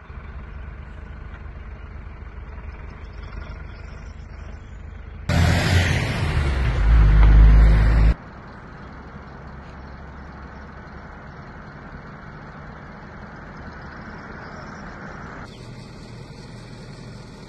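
Outdoor roadside noise with road traffic going by. About five seconds in there is a much louder stretch of about three seconds with strong deep noise, which starts and stops abruptly.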